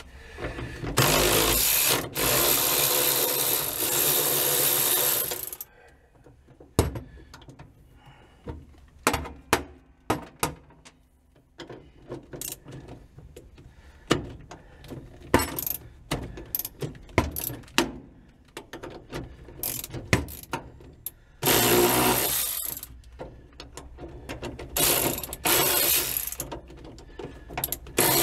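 Socket ratchet wrench working bolts loose at the parking brake lever mount of an old truck cab floor. It ratchets fast in a few bursts, with scattered single clicks and clinks of metal between them.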